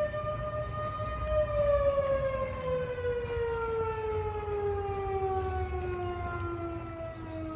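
Federal Signal Model 5 mechanical siren winding down: its wail holds steady for about a second and a half, then the pitch falls slowly and smoothly as the rotor coasts.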